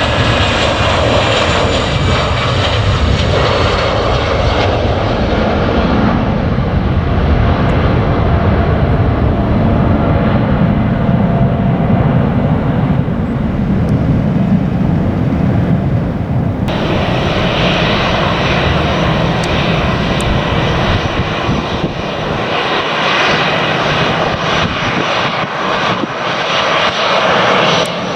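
Jet airliner engines at takeoff power: a loud, continuous rumble, with a whine that falls in pitch at the start. About two-thirds of the way through, the sound changes abruptly.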